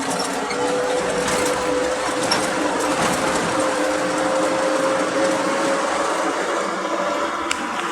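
WW2 GMC GSU192 army truck heard from inside the cab while driving, its drivetrain running steadily with a whine that rises slightly in pitch over the road and cab noise.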